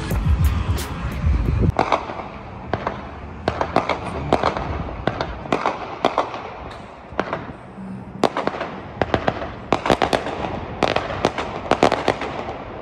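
Aerial fireworks going off: an irregular run of sharp bangs and crackling pops, some in quick clusters. Background music ends just under two seconds in, before the bangs begin.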